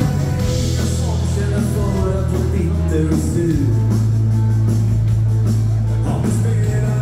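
Live dance-band music in a rock'n'roll style, with held bass notes that change every few seconds under electric guitar.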